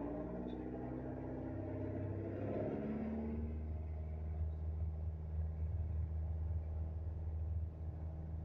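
Piper PA-28's piston engine and propeller at takeoff power, heard inside the cabin during the takeoff roll: the engine note rises over the first three seconds, then holds steady.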